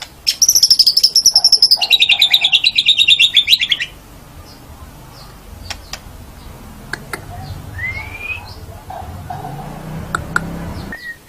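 White-rumped shama (murai batu) singing: a loud rapid trill of about nine notes a second that starts high and steps down in pitch, lasting about three and a half seconds, followed by quieter scattered short notes and a brief rising whistle.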